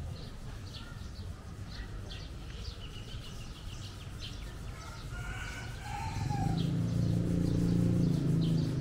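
Birds calling over street background, with a pitched call about five seconds in. A low hum swells over the last few seconds and becomes the loudest sound.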